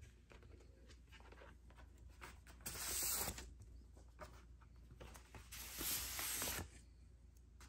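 Paper inner sleeves and a cardboard gatefold record jacket rustling and sliding against each other as a vinyl record is pulled out by hand, with soft scattered rustles and two longer sliding swishes, about three and six seconds in.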